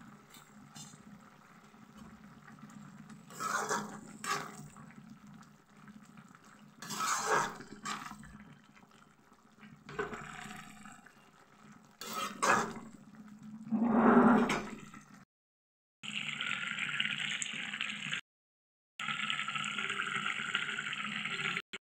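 Mixed vegetable curry simmering and bubbling in a kadai, with a spoon stirring and scraping through it in half a dozen short bursts. After two brief cuts to silence, a steady hissing bubble from the simmering pan.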